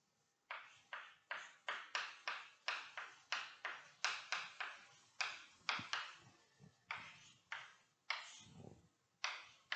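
Chalk writing on a chalkboard: a quick series of short, sharp chalk strokes and taps, two or three a second, with one longer, duller stroke near the end.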